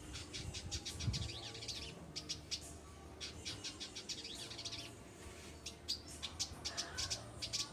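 Village indigobird singing: rapid runs of high chirps and buzzy trills in three spells of song, with a faint low hum underneath.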